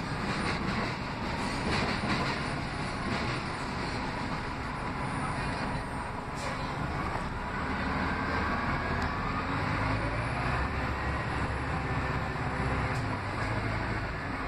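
Orion VII CNG transit bus heard from inside the passenger cabin while driving: steady engine, tyre and road noise. A deeper rumble builds about ten seconds in.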